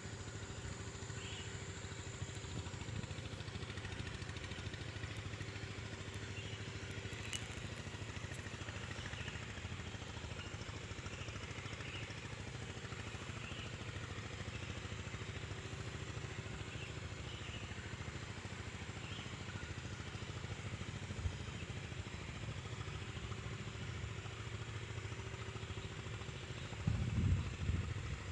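Steady low rumble of outdoor background noise with faint short chirps now and then; louder, uneven rumbling comes in near the end.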